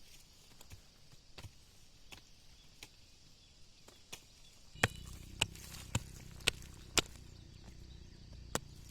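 A series of sharp knocks: faint scattered ticks at first, then about halfway through five loud strikes in quick, even succession, about two a second, and one more near the end, over a low steady background.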